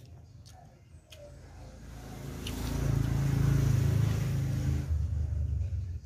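A motor vehicle passing by: its engine and road noise swell over about two seconds, are loudest around three to four seconds in, then fade, leaving a low engine hum near the end.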